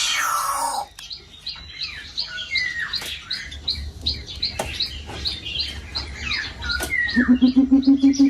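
Aviary birds chirping busily with quick high notes, with a harsh falling squawk at the start. Near the end a coucal's deep, rapid pulsing call begins, about four to five hoots a second.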